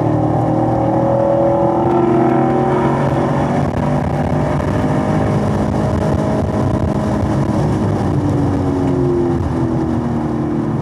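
Chevrolet Camaro SS 1LE's 6.2-litre V8 at full throttle in third gear, the engine note rising as it pulls toward redline. Near the end the pitch falls as the driver lifts off and brakes. It is heard from inside the car.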